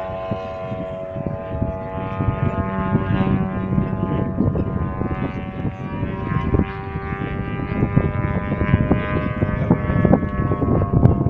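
Radio-controlled model airplane's motor and propeller droning with a steady whine that slowly drops in pitch as the plane climbs away. Wind rumbles on the microphone, growing stronger near the end.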